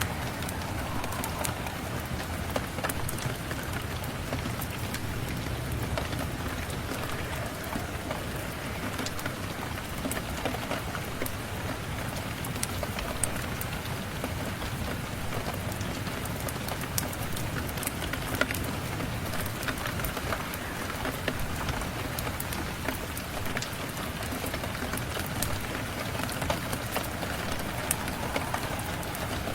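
Steady rain falling, with scattered sharp crackles and ticks from a log fire in a fireplace.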